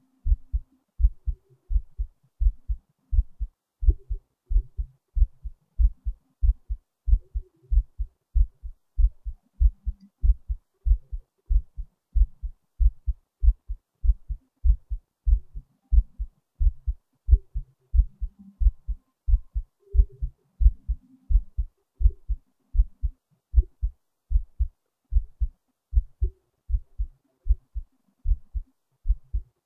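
Heartbeat: a steady, regular rhythm of low thumps in lub-dub pairs.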